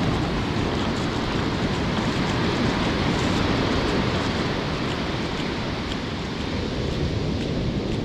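Ocean surf: waves breaking and foamy wash running up the sand, a steady rushing noise, with a low rumble of wind on the microphone.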